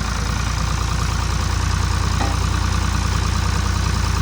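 Ford diesel backhoe engine running steadily, with a fast, even low pulsing and a steady whine over it.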